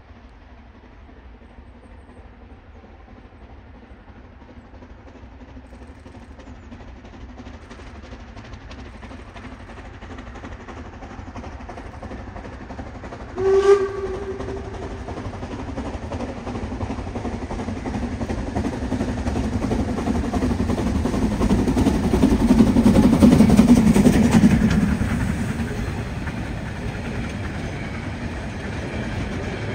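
A large vehicle approaching and passing by: a rumbling noise grows steadily louder, peaks about three-quarters of the way through, then fades. About halfway through it gives one short pitched horn blast.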